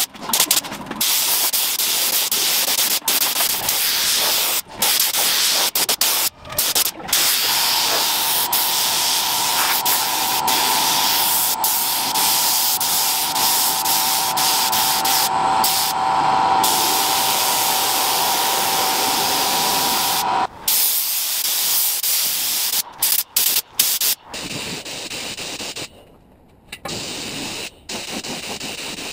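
Compressed-air gravity-feed spray gun hissing as it sprays paint, cutting off and restarting many times as the trigger is released and pulled. A steady whistle runs under the hiss for about twelve seconds in the middle.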